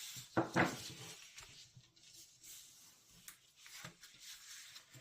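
Faint rustle of cardstock being handled, with a few soft clicks and taps.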